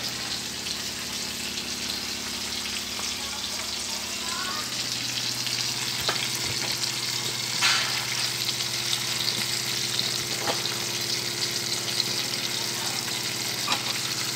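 Whole pompano shallow-frying in hot oil, sizzling steadily, with a few sharp pops of spitting oil, the loudest about eight seconds in.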